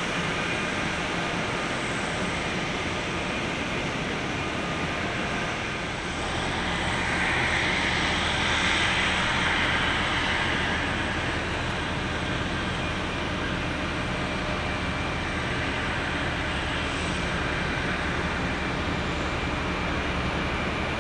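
Jet aircraft engine noise on an airport apron: a steady rushing noise with a low hum underneath, swelling for a few seconds about six seconds in.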